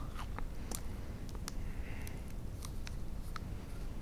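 Light handling noise: faint, scattered clicks and taps as small breadsticks are fiddled into place, over a steady low room hum.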